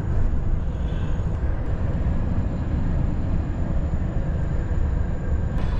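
Steady low drone of a semi-truck's engine and road rumble, heard from inside the cab while cruising at a constant slow speed.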